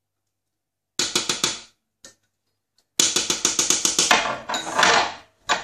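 A small spatula rapped quickly against the rim of a stainless-steel food-processor bowl to knock quark off it. A short run of about six knocks comes about a second in, then a longer, faster run of about nine knocks a second, then a second of scraping against the bowl.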